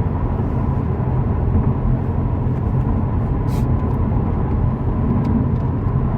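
Steady tyre road noise inside the cabin of a 2018 Subaru WRX STI on Yokohama Advan tyres at speed: a loud low rumble with a faint, steady high-pitched ringing tone over it. The driver puts the ringing down to the tyres being hard.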